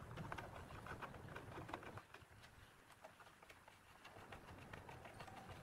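Faint small clicks and taps of a steel bolt and a metal strap bracket being handled against a plywood box, mostly in the first two seconds, over near-silent room tone.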